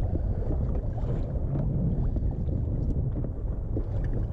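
Steady low rumble of wind on the microphone out on open water, with a few faint clicks.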